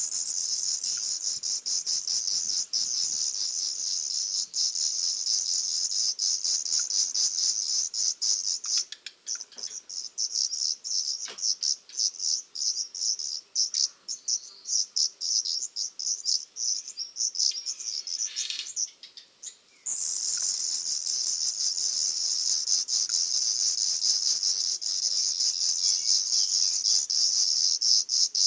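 Black redstart nestlings begging for food: a dense, very high-pitched, rapid chatter of calls. It breaks into separate bursts about nine seconds in and swells back to a steady chatter about twenty seconds in.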